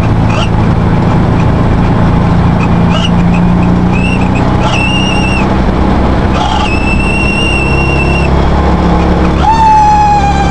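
Volkswagen Beetle speedometer screeching while driving: two high-pitched squeals of a second or two each in the middle, then near the end a lower, steady squeal that sinks slightly in pitch. The drone of the car runs underneath.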